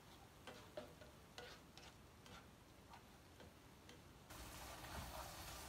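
Faint, irregular clicks and taps of a slotted plastic spatula against a nonstick frying pan as sliced peppers and onions are stirred in sauce. About four seconds in, a faint steady sizzling hiss from the pan comes in.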